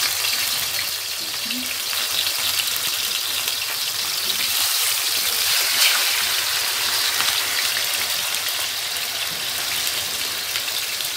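Breaded chicken cutlets shallow-frying in hot oil in a pan, giving a steady sizzle with fine crackling throughout. One brief louder tick comes about halfway through.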